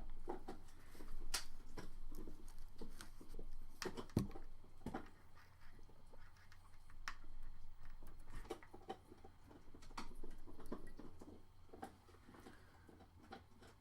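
Scattered light clicks and knocks as small wired connectors and tools are handled on a workbench, over a faint steady low hum.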